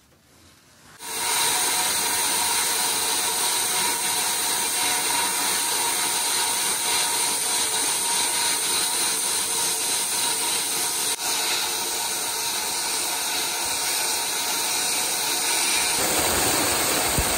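Sandblaster gun blasting abrasive onto a heavily rusted metal figurine in a blast cabinet, stripping off the rust. It is a loud, steady hiss that starts about a second in, with a brief break past the middle.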